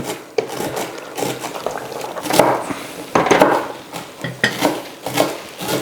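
A spoon clinking and scraping against a cooking pot in irregular knocks as chopped tomatoes are stirred into a lamb curry.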